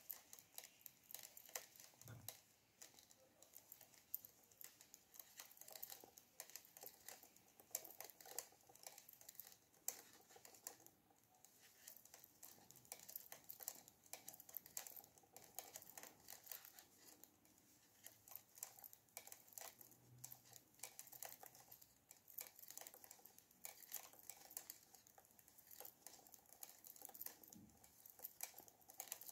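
Faint, irregular clicking of circular knitting needles as stitches are purled one after another.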